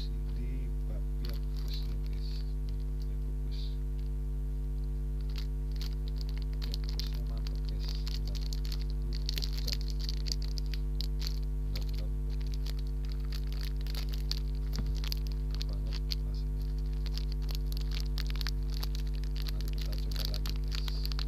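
Thin plastic wrapper crinkling and crackling in short irregular bursts as hands unwrap it, heaviest from about six seconds in, over a steady electrical mains hum that is the loudest sound throughout.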